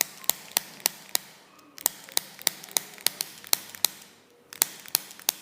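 Sharp clicks in three quick runs, about three a second, with short pauses between the runs, made during chiropractic treatment.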